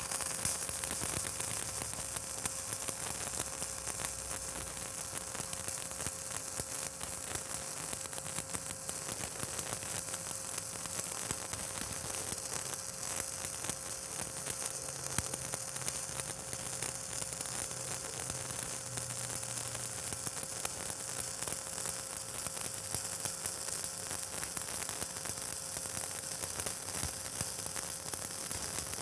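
Stick (shielded metal arc) welding with a 7018 electrode on a vertical-up fill pass: the arc's steady crackling sizzle, with a faint steady hum underneath.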